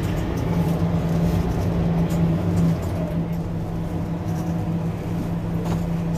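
Mercedes-Benz Citaro C2 Hybrid city bus idling while stopped: a steady, unchanging low hum.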